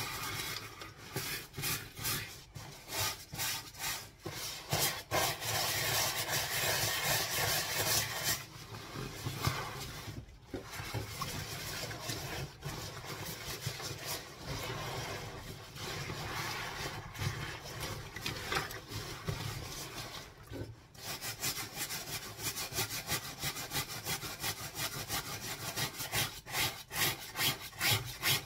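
A scrubbing brush and rubber-gloved hands scrubbing a wet puffer jacket in detergent, in repeated back-and-forth strokes. The strokes run steadier through the middle and come quicker near the end, about two a second.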